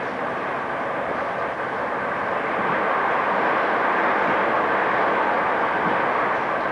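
Train running along the line, a steady rolling noise of wheels on rail that grows a little louder about two and a half seconds in.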